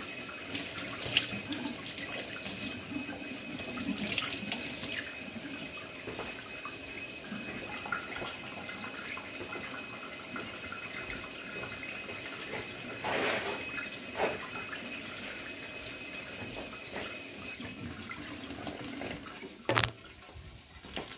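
Kitchen faucet running into a stainless steel sink as raw pork chops are rinsed under it, a steady splashing with a thin whistle-like tone. The flow stops about 18 seconds in, followed by a couple of sharp knocks.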